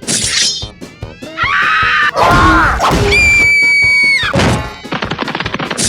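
A rapid string of dubbed comedic sound effects over music: a burst, a sweeping sound and a falling glide, a steady high beep held for about a second, then a thud and a quick rattle of clicks.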